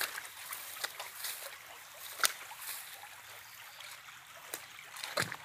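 Shallow stream trickling over stones, a steady hiss of running water. A few short sharp clicks sound over it, the sharpest about two seconds in.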